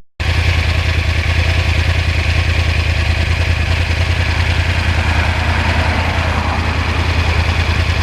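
A 2009 Yamaha R1's crossplane inline-four idling with a steady, evenly repeating low pulse.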